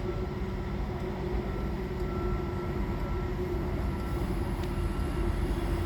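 Concrete mixer truck's diesel engine running steadily, a constant low drone with a steady hum.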